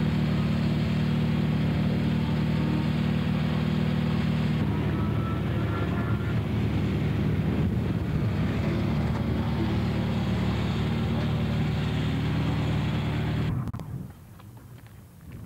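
Racing car engine running at a steady speed. About five seconds in the sound changes to a rougher engine running, and near the end it drops away to faint wind noise.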